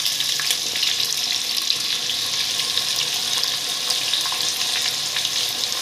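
Sliced onions frying in hot ghee in a large pot: a steady sizzle with many fine crackling spits.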